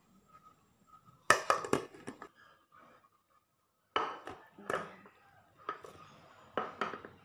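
Plate and round metal cake pan clinking and knocking together as the plate is laid over the pan and the two are turned over and set down on the table. There is a quick cluster of sharp knocks about a second in, then single knocks spread through the second half.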